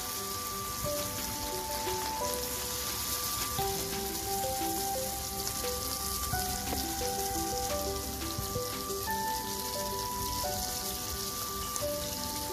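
Mudskipper fish shallow-frying in hot oil in a pan: a steady sizzle as the pieces are turned over with tongs to fry the second side. Soft background music with held, stepping notes plays along.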